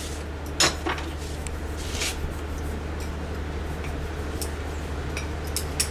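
A steady low hum with a few sharp taps over it, the loudest just over half a second in and another about two seconds in.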